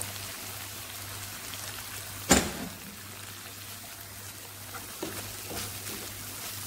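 Chicken liver and tomato sauce sizzling in a frying pan as a wooden spatula stirs it, a steady hiss over a low hum. There is one sharp knock, the spatula against the pan, about two seconds in, and a few light scrapes later.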